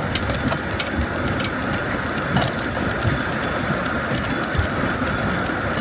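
Chain-driven pedal coaster car rolling along its steel track: a steady rattling rumble of wheels and chain, with a quick, even run of light metallic clicks.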